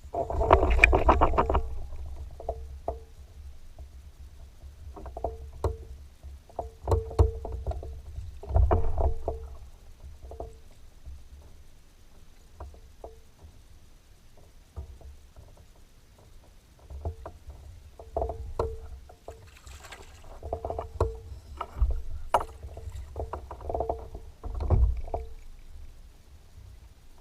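Small waves slapping against the hull of a bass fishing boat: irregular knocks, some in quick clusters, the loudest about a second in. Low wind rumble on the microphone from a light breeze.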